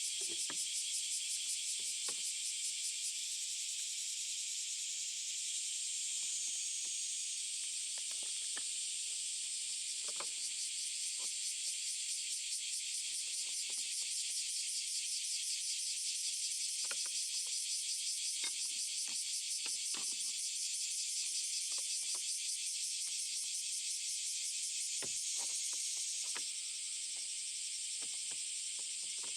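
Steady, dense chirring of many insects, a fast pulsing trill, with scattered faint clicks and taps now and then.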